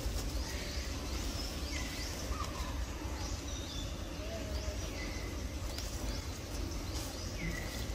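Forest ambience: birds giving short high chirps, about one or two a second, over a steady low rumble.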